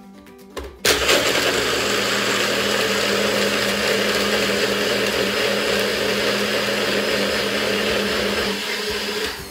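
Personal bullet-style blender, run by pressing down on its cup, blending ice cubes with milk and strawberries. It starts suddenly about a second in, runs steadily and loudly, and stops just before the end.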